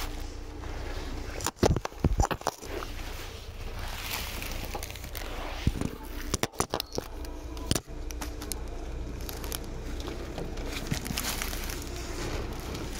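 Seibu 2000 series electric train running, heard from inside the car as a steady low rumble. Two brief clusters of sharp clattering knocks come about two seconds in and again around six to seven seconds in.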